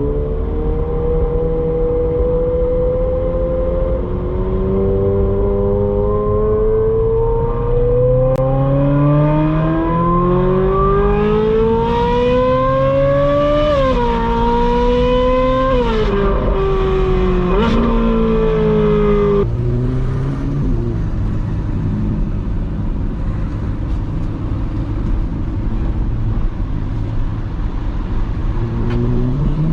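Ferrari 458's V8 through a Brilliant aftermarket exhaust, accelerating with the engine note climbing steadily for about ten seconds, then dropping sharply three times in quick succession as it shifts up. It then falls to a lower, steady drone while cruising, and starts climbing again near the end.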